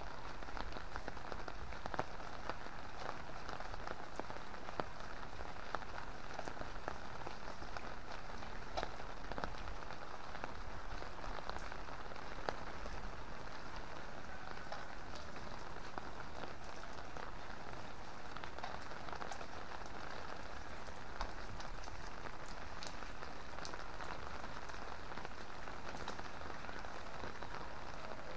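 Steady rain falling, an even patter with scattered sharper ticks of single drops.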